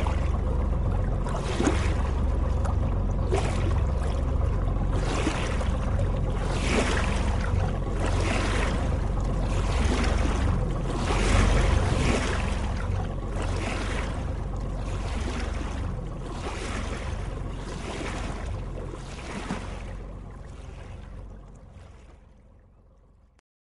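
Sea and wind noise: a deep rumble with a rushing swell about every second and a half, fading out near the end.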